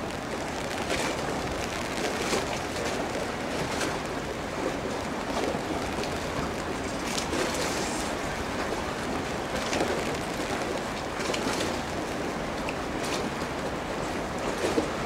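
Steady rushing outdoor noise with faint scattered ticks and no clear tone.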